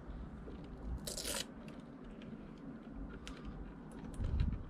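Handling noise: a brief crunchy rustle about a second in, then scattered light clicks and a low thump near the end.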